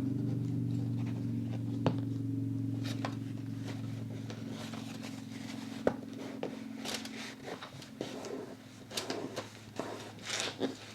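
Paper being handled and folded: rustling, crinkling and light taps that grow busier in the second half, with a sharp click about two seconds in and another about six seconds in. A steady low hum underneath fades away over the first half.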